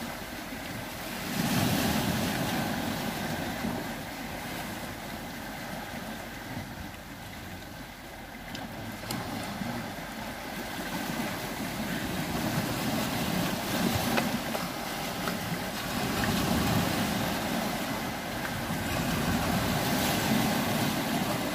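Sea waves washing onto a rocky shore, swelling and falling back in repeated surges, with wind in the microphone.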